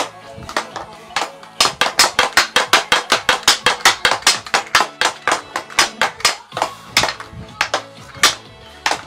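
Hockey stick blade clacking against a puck on a plastic stickhandling board: sparse strikes at first, then a fast run of about six a second for several seconds, slowing again near the end. Background music plays underneath.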